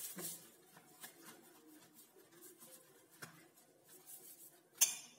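Hands rolling and pressing a log of stiff dough on a steel plate: faint rubbing and small taps, with one short, sharp clack near the end.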